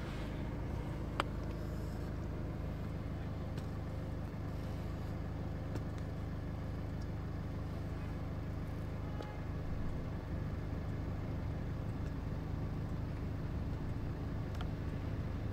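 Volkswagen Golf 6's 2.0 TDI four-cylinder diesel engine idling steadily, heard from inside the cabin, with one sharp click about a second in.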